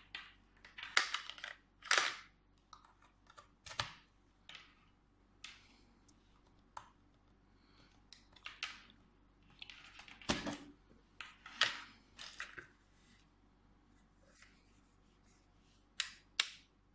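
Plastic packaging crinkling and rustling in irregular bursts as it is peeled off a new LED work light and its USB cable. Two sharp clicks near the end.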